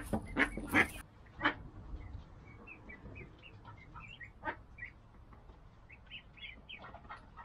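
Mallard ducklings peeping: many short, high peeps, a few each second, from about two seconds in. They follow a few louder short calls in the first second and a half.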